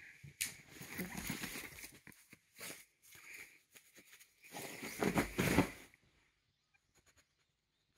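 A cat scrabbling and pouncing on a duvet, pawing at a grass-stem toy, with the bedding rustling in bursts; loudest about five seconds in, then it stops.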